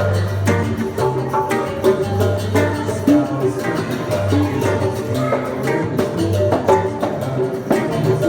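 Live acoustic music: a guitar (violão) playing with hand percussion keeping a steady beat.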